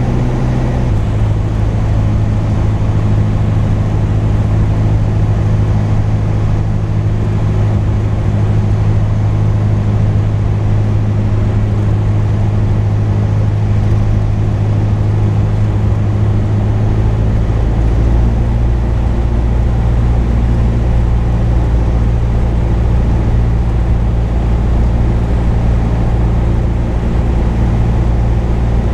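Cessna 172 Skyhawk's piston engine and propeller droning steadily, heard inside the cockpit. The note shifts slightly and deepens about two-thirds of the way through.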